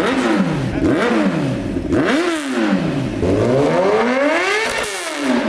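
Motorcycle engine revving up and down repeatedly through the gears. There are three quick rises and falls in pitch, then one longer climb that peaks about five seconds in and drops away.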